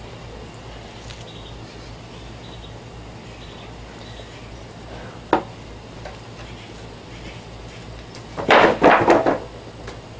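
One sharp knock about five seconds in, then a quick run of loud knocks and clatters near the end, over steady background noise.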